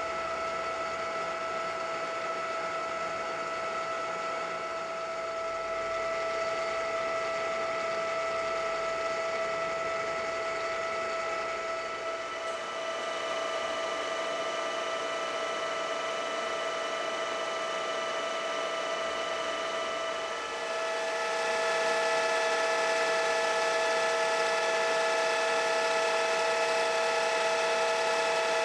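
Ooya RE-1225H radial arm drill press running under power, its spindle and gearbox giving a steady, quiet mechanical whine. The tone changes a little under halfway through and again about two-thirds through, where it gets louder.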